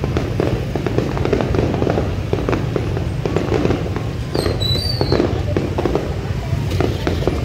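Fireworks going off in a dense, irregular string of crackling pops and bangs over a continuous low rumble.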